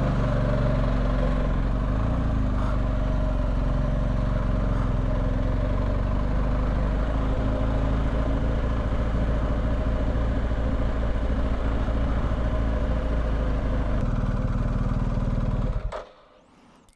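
BMW R1250GS boxer-twin motorcycle engine running steadily with road noise. The sound cuts off abruptly about a second before the end.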